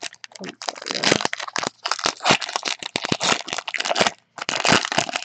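Foil wrapper of a Panini Unparalleled football card pack crinkling and tearing as hands rip it open, in quick crackly bursts with a short pause near the end.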